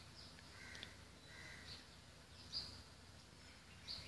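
Near silence: room tone with a few faint, short high chirps scattered through it.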